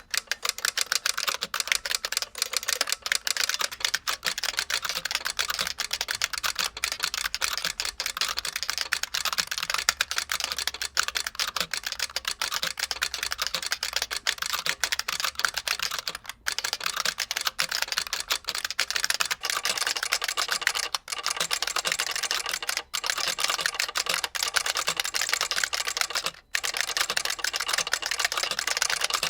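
Fast, continuous typing on a Model F 62 buckling-spring mechanical keyboard, its solenoid clacking along with the key strikes, with a few brief pauses.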